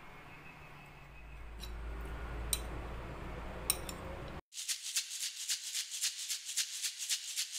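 Background music that starts suddenly partway through with a steady shaker rhythm, about four shakes a second. Before it, only faint room noise with a few light clicks.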